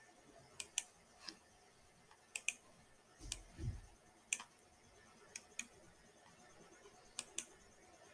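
Computer mouse clicking while text is selected: sharp single clicks, mostly in quick pairs, spaced a second or two apart. A soft low thud comes about three seconds in.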